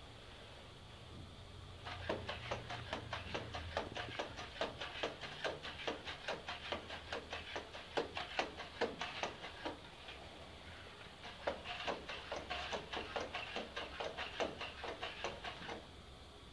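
Two NAO humanoid robots moving and stepping: a quick run of mechanical clicks and taps from their joint motors and feet, several a second, with a short lull partway through.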